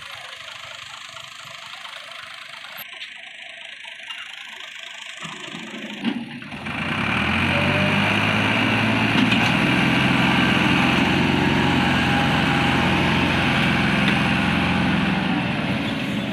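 Diesel farm tractor engine running under load while pulling a loaded sugarcane trolley stuck in mud. It is quiet at first, then much louder and steady from about six and a half seconds in.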